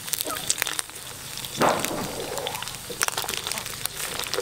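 Hot oil in a wok crackling and spattering as frogs deep-fry and a metal spatula scoops through them, with one louder sizzle about a second and a half in.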